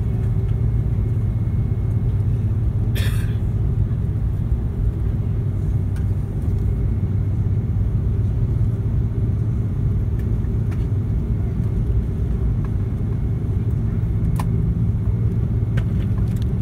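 Steady low rumble and hum of an Airbus A330-300 taxiing, heard inside the cabin, its Rolls-Royce Trent 700 engines running at low power. A few short clicks and knocks sound over it, the loudest about three seconds in.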